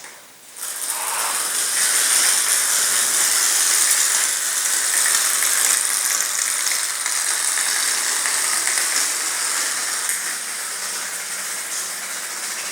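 Clockwork wind-up toy mouse running: a steady high rattling whir from its spring-driven gears. It starts about half a second in and grows slightly quieter as the spring unwinds.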